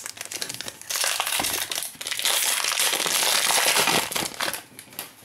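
Foil wrapper of a Panini Prizm Fast Break trading-card pack crinkling as it is pulled from the box and worked open by hand, loudest in the middle and dying away near the end.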